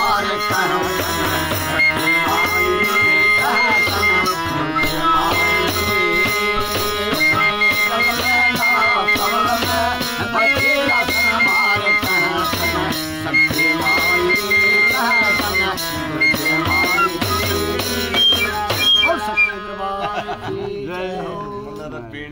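Harmonium and jingled tambourine accompanying a man singing a Mata ki bhent, a Punjabi/Hindi devotional folk song to the goddess. The tambourine keeps a steady beat with its jingles, and the music stops about twenty seconds in.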